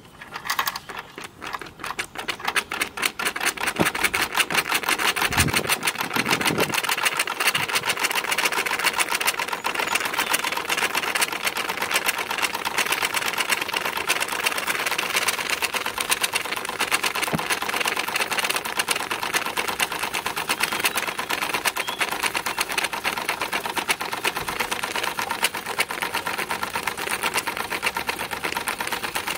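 Wilesco D20 model steam engine starting up and gathering speed over the first few seconds, then running fast and steady with an even, rapid beat of exhaust puffs and mechanical clatter.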